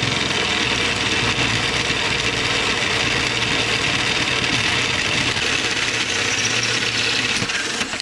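Cordless drill spinning a 1¼-inch hole saw in a tubing notcher, cutting a notch through 1¼-inch steel tubing: a steady grinding cut over the drill's motor hum, cutting off suddenly at the end.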